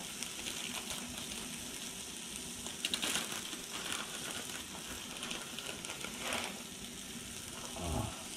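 Beef and eggs sizzling on a Blackstone flat-top griddle, a steady frying hiss, with a few light clicks and scrapes about three seconds in and again after six seconds.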